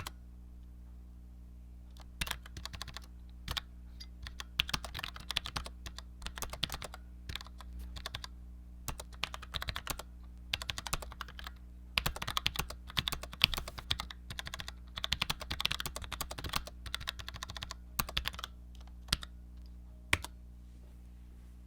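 Typing on a Cherry G84-4100 compact keyboard with Cherry ML low-profile mechanical switches: quick runs of keystroke clicks broken by short pauses, stopping about a second before the end.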